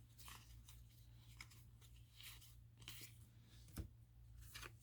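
Faint rustling and soft clicks of trading cards being handled and slid through the hands, about one small sound a second, over a low steady hum.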